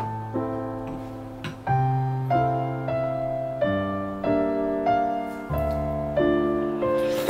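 Gentle background piano music: notes and chords struck one after another at an unhurried pace, each ringing and fading.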